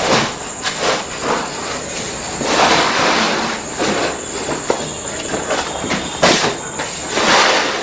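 Plastic flooring sheet being unrolled and handled over a tiled floor: continuous rustling and scraping with louder swells, the sharpest a crackle about six seconds in.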